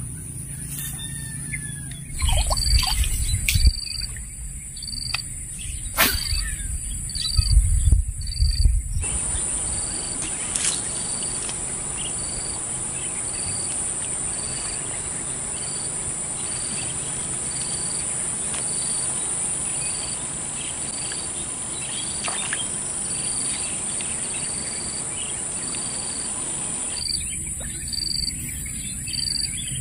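Outdoor insect chorus, a steady high buzz, with a short chirp repeated a bit more than once a second. In the first several seconds there are loud low rumbling bursts and one sharp knock.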